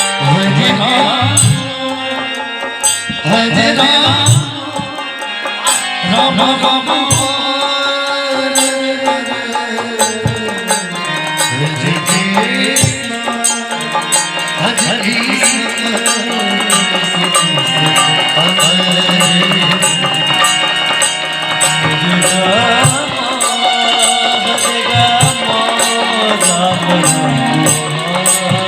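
Devotional kirtan music: tabla drumming with a steady beat of sharp metallic clicks from hand cymbals, under a wavering melody line.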